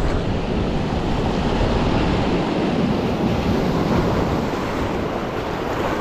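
Surf breaking and washing over a rocky shore in a steady rush, with wind buffeting the microphone.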